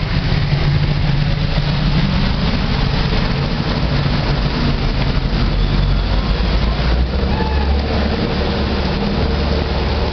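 A car or truck engine running at low revs through floodwater, a steady low hum whose deepest note grows stronger about halfway through, over a constant hiss of rain and water.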